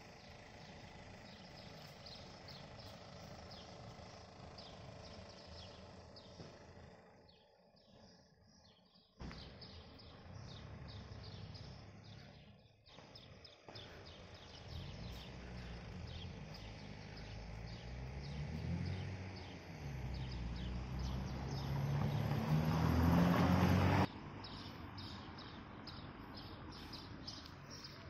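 Small birds chirping repeatedly in the trees. From midway, a motor vehicle's engine grows louder, its pitch climbing, dropping once and climbing again as it accelerates through the gears, then cuts off suddenly near the end.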